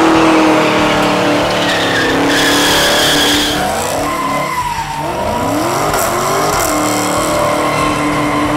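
Supercharged 6.2-litre Hemi V8 of a 2015 Dodge Charger SRT Hellcat doing a burnout, held at high revs with the rear tyres squealing and spinning. The squeal is loudest two to three seconds in, then the revs rise and fall several times.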